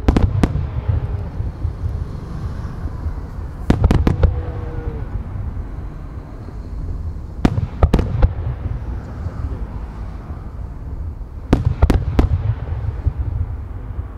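Wide starmine aerial firework shells bursting in volleys of two or three near-simultaneous bangs, about every four seconds, with a low rumble carrying on between the volleys.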